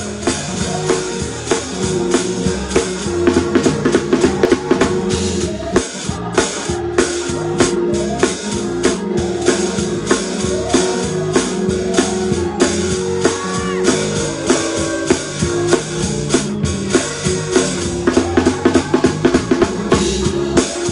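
Drum kit played live: fast, dense hits on drums and cymbals, with steady held pitched notes from accompanying instruments underneath.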